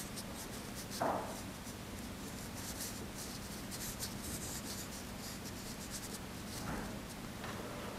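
Soft, scratchy swishing of a rooster-feather brush dragging ink across paper, stroke after stroke, as the chest and belly of a painted rooster are filled in.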